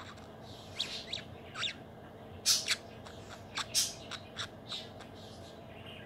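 Young budgerigar giving about ten short, scattered calls: soft chirps that slide in pitch in the first two seconds, then harsher, scratchy squawks, the loudest around the middle.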